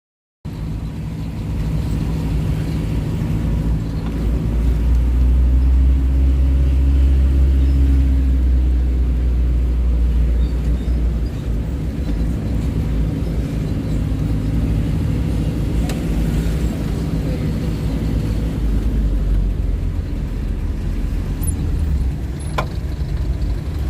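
Motor vehicle running, a steady low engine rumble with road noise that swells louder for several seconds before easing back.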